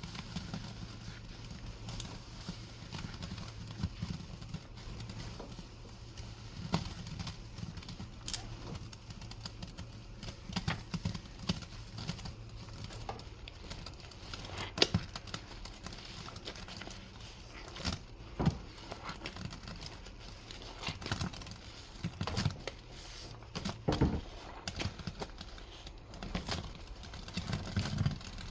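Wet, soapy squishing and popping from thick dish-soap suds, with irregular sharp clicks and crackles scattered throughout.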